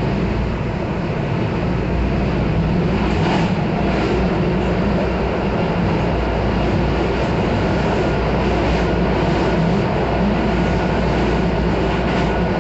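Miami-Dade Metrorail train running along its elevated track, heard from inside the car: a loud, steady rumble of wheels and running gear. A faint steady whine joins it in the second half.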